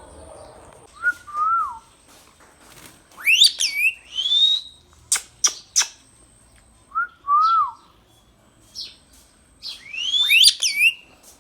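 Indian ringneck parakeet calling: two lower whistled notes that rise and then fall, sharp high sweeping calls a few seconds in and again near the end, and two short clicks between them.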